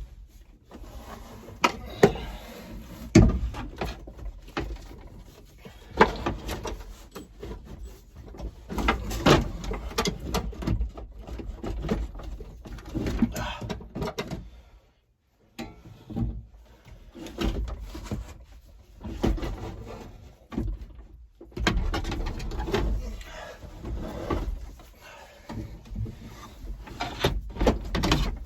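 Irregular knocks, clunks and scraping from a floor cover being worked back into a tractor cab, with hard parts bumping and sliding against each other. The sound drops out for under a second about halfway through.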